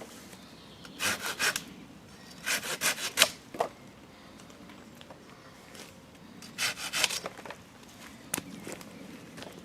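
Silky Gomtaro 210 mm pull-cut handsaw sawing through a branch wedged between two branches, in three short bouts of quick strokes with pauses between.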